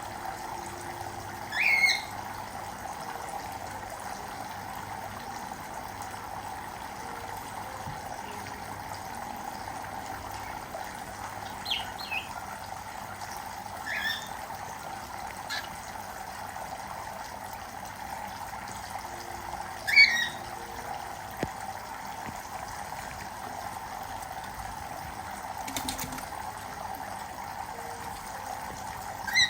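Cockatiels giving a handful of short chirps over a steady trickle of running water. The loudest chirps come about two seconds and twenty seconds in.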